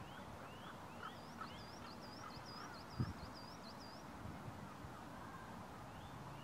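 Birdsong: a rapid run of repeated high swooping notes with scattered rising chirps lower down. A single thump about three seconds in.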